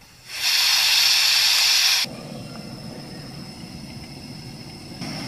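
Portable canister gas camping stove: gas hisses loudly from the burner for about a second and a half, then cuts off sharply as the flame lights. The burner then burns with a steady, lower flame noise.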